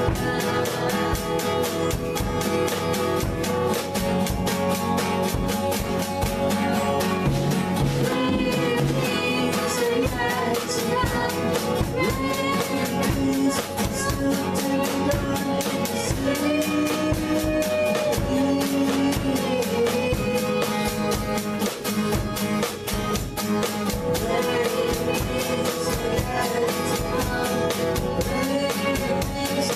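A male voice singing a worship song to a strummed acoustic guitar, the guitar keeping a steady, driving strum throughout.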